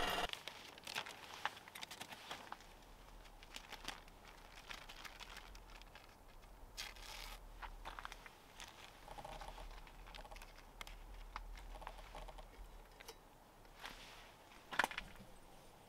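Paper packaging crinkling and rustling as a drip-coffee bag is handled and its paper filter is fitted onto an insulated mug, with scattered light clicks and taps. One sharper click near the end.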